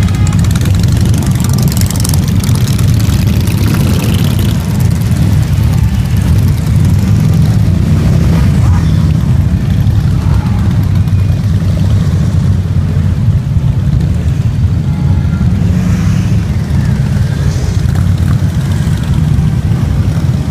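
Many heavy cruiser and touring motorcycles, a trike among them, riding slowly past in a continuous column, their V-twin engines running loud and steady.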